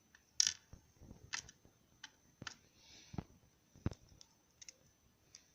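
Irregular light clicks and taps of small metal lock parts being handled, as the pins and springs of a pin tumbler lock cylinder are taken out chamber by chamber. The loudest click comes about half a second in.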